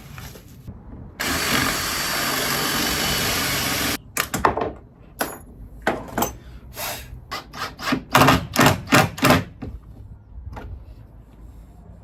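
A drill boring a pocket hole through a pocket hole jig, running steadily for about three seconds and stopping abruptly. It is followed by a string of short knocks and brief bursts, loudest about eight to nine seconds in.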